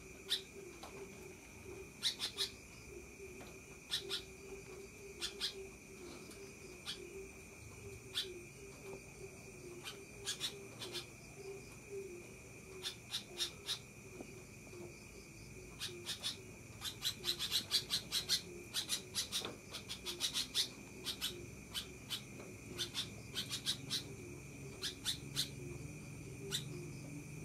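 Sooty-headed bulbul (kutilang) chattering in short, sharp notes that come in scattered runs, thickest and loudest about two-thirds of the way through. A steady high whine sits underneath.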